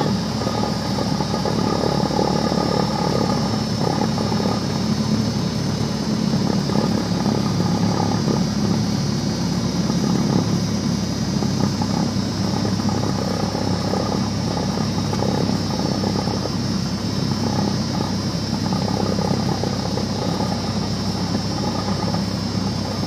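Small single-engine propeller airplane's piston engine running steadily at low taxi power, heard from inside the cockpit, with a steady high-pitched whine over it.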